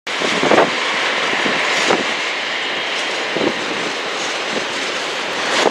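Airbus A310 jet airliner on final approach, its engines making a steady roar, with a few short thumps about every one and a half seconds.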